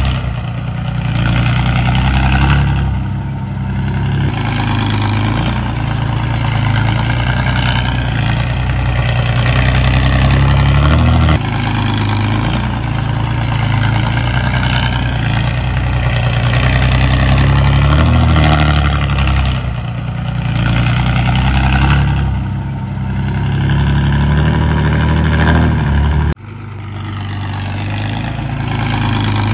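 Heavy diesel engines of earthmoving machines, a bulldozer and dump trucks, running and working, rising and falling in pitch. The sound changes abruptly about a third of the way in and again near the end.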